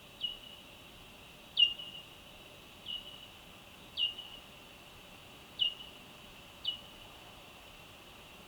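Ultrasonic bat echolocation calls played back time-stretched so they fall into hearing range. They come as six short chirps, each a quick downward sweep ending in a brief steady tail, spaced about a second or so apart over faint hiss.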